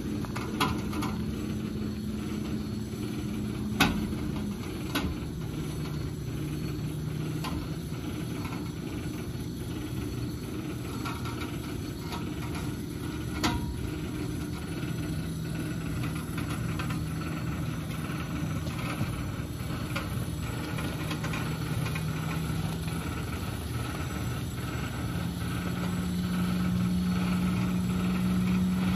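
A vehicle engine running steadily at low speed, its pitch dropping a few seconds in and rising again near the end, with a few sharp knocks along the way.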